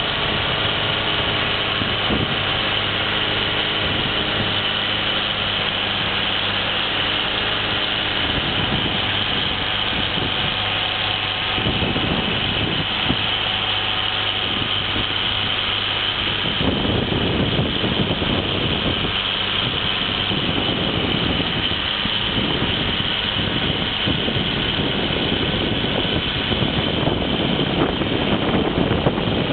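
John Deere 4450 tractor's six-cylinder diesel engine running steadily with a snowblower working. Bursts of rushing noise come and go over the engine hum from a little before halfway on.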